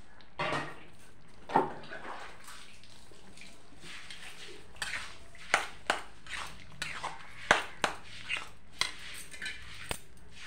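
Steel spatula stirring potato curry in a metal kadai: about ten sharp, irregular clanks and scrapes of metal on the pan, over a steady hiss from the simmering gravy.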